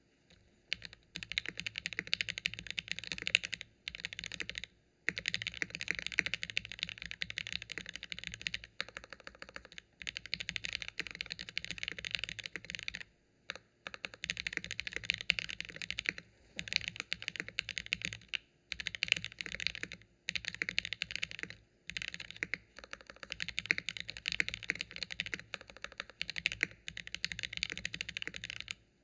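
Continuous typing on a KBDfans Phase One 65 mechanical keyboard fitted with Gateron Oil King linear switches and GMK keycaps on an aluminium plate, with the case foam taken out. Rapid keystrokes come in runs of a few seconds, broken by short pauses.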